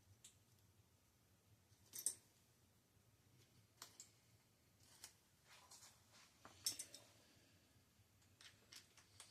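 Faint, scattered sharp clicks and snips of hand tools and metal bicycle parts being handled during a teardown. The loudest come about two seconds in and again about two-thirds of the way through.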